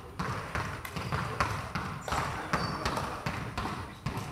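Basketballs bouncing on a hardwood gym floor: irregular, overlapping thuds that echo around the big hall, with a brief high squeak midway.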